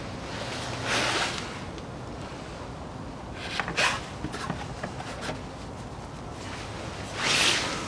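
Handling sounds of a plastic gear-oil bottle being raised to the front differential's filler hole, with three short rustles: about a second in, near the middle, and a louder one near the end.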